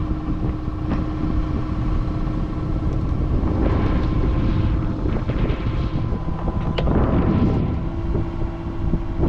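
Small boat's engine running steadily under way, with wind buffeting the microphone.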